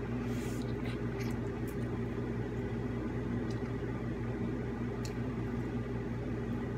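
Air conditioner running with a steady, even hum, with a few faint clicks over it.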